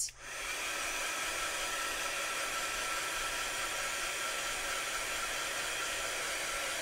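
Handheld craft heat tool blowing hot air steadily, with a faint whine over the rush of air, drying wet paint on the paper. It starts just after the beginning and cuts off at the end.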